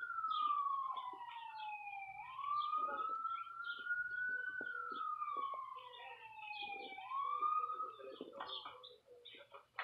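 Emergency vehicle siren wailing, its pitch slowly falling and rising in cycles of about five seconds; it cuts off near the end.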